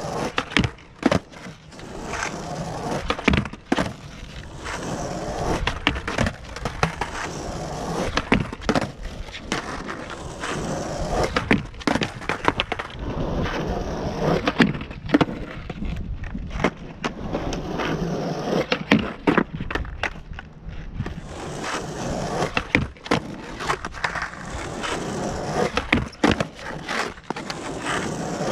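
Skateboard wheels rolling on the skatepark's asphalt, broken by repeated sharp clacks and knocks of the board as the skater pushes and attempts backside noseslides on a low box ledge.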